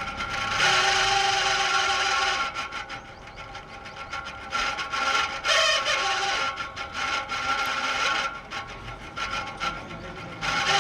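Electric exhaust fan running with a harsh scraping, grinding rub over a steady hum, the rub coming in loud stretches of a second or two with quieter gaps. This is the noise of a fan motor whose shaft and bushes are clogged with dust and grease, typical of a fan in need of cleaning and lubrication.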